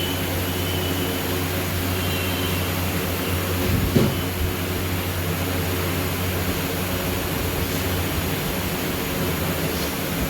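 A steady machine drone with a low hum, and a short knock about four seconds in.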